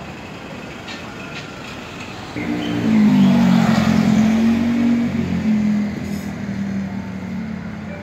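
A motor vehicle passing close by on the street: its engine hum and tyre noise swell sharply a little over two seconds in, peak for about three seconds, then fade, over a steady background of street traffic.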